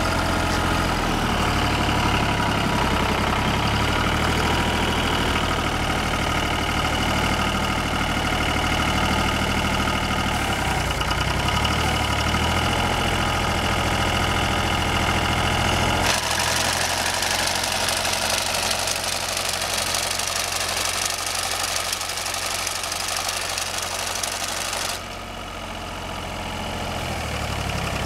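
John Deere 950 tractor's three-cylinder diesel engine running steadily while its sickle bar mower is lowered and raised. About halfway through, the engine note changes and a loud, noisy clatter fills the highs, dropping away a few seconds before the end.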